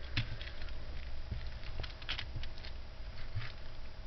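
Costume jewelry handled by hand: metal chains and beads clicking and rattling lightly, many small irregular clicks.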